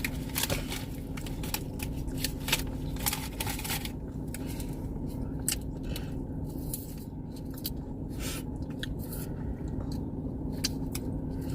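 Close-up eating sounds: chewing with many short wet clicks and smacks of the mouth, over a steady low hum of a car cabin.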